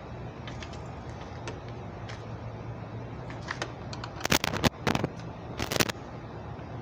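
Sharp metallic clicks and clinks of a spanner working the mounting nut of a Honda Dio scooter's side mirror, coming in quick clusters from about three and a half seconds in, over a steady low hum.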